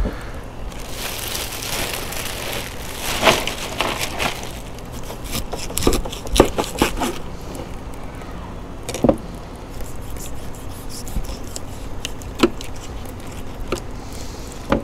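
Handling noises at a boat's fillet table: a plastic bag rustling and crinkling for a few seconds, then several sharp knocks and scrapes as pieces of kingfish and a fillet knife are set down on the cutting board.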